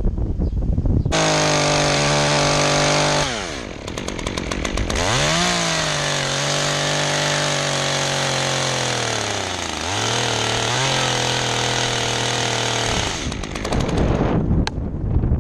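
Wind buffeting the microphone, then about a second in a chainsaw starts running at high speed for about twelve seconds. Its pitch drops and comes back up twice before it stops. Wind gusts and a few sharp cracks follow near the end.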